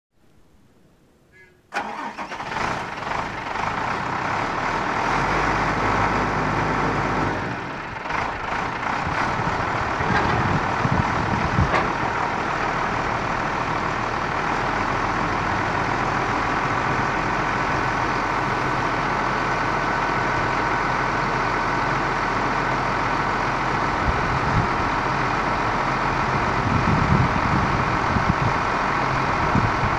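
International 4600's DT466 inline-six turbo diesel starting suddenly about two seconds in, then running steadily while the truck's hydraulics swing the plow blade and raise the dump bed.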